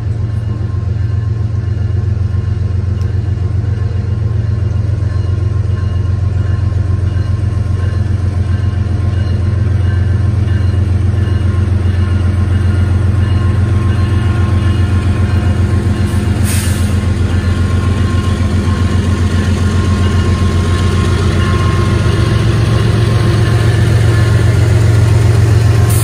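Freight train with diesel locomotives running, a steady low rumble with a fast even beat that grows gradually louder. A short burst of high hiss comes about two-thirds of the way through.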